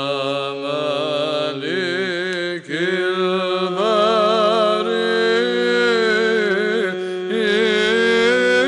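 Male voice chanting an Arabic Byzantine Orthodox hymn in the sixth tone, with an ornamented, melismatic melody over a steady held drone (ison). There is a brief break in the line about two and a half seconds in.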